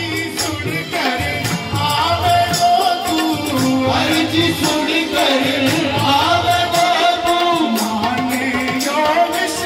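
Male singer performing a Hindi devotional bhajan through a microphone and PA, with long held, ornamented notes over accompanying instruments and a steady jingling, tambourine-like percussion beat.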